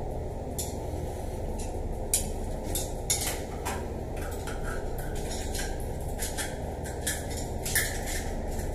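Screwdriver clicking and scraping against a metal shower valve while its handle is being removed, in irregular sharp clinks. A steady low background noise runs underneath.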